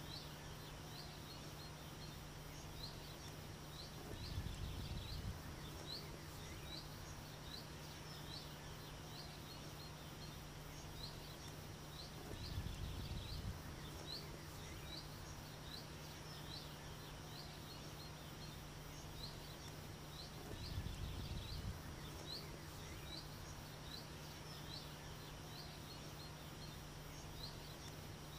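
Countryside ambience: a short high chirp repeating about twice a second over a faint steady hum. A low rumble swells and fades about every eight seconds.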